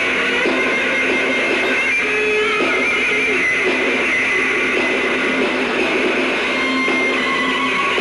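Amplified electric guitar playing loudly and without a break at a metal band's sound check, with wavering held high notes over a steady low tone.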